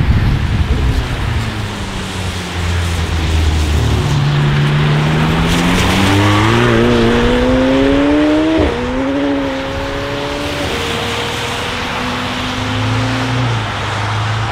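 McLaren 720S twin-turbo V8 accelerating away on a wet road. The engine note climbs, drops sharply with an upshift about eight and a half seconds in, then climbs again. A steady hiss of tyre spray runs underneath.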